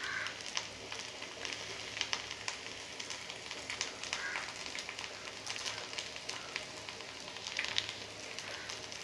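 Bamboo-shoot fritters frying in a little oil on a nonstick tawa: a steady sizzle with many small pops and crackles.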